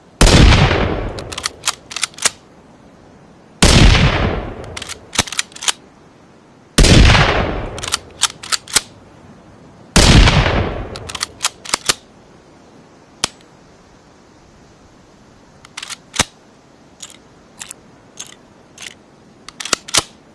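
Rifle gunshot sound effect layered from a Ruger American rifle and a rimfire rifle: four loud shots about three seconds apart, each with a long fading tail and followed by a few sharp clicks. From about halfway on, only scattered sharp clicks.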